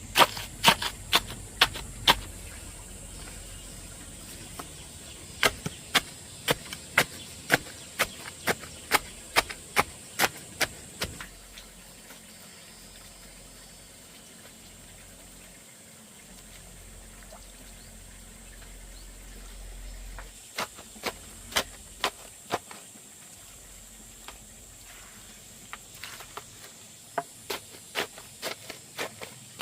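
Runs of sharp knocks or strikes, about two a second, with quieter pauses between the runs, over a steady high hiss.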